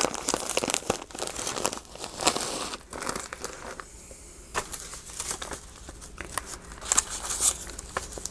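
Paper scraps and craft ephemera crinkling and rustling as they are rummaged through and handled, with many small clicks and taps. It is busiest over the first three seconds, quieter in the middle, and picks up again about seven seconds in.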